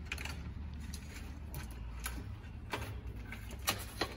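Bicycle chain being worked back onto the sprockets and the cranks turned, giving irregular metallic clicks and rattles from the chain and gears, the sharpest near the end.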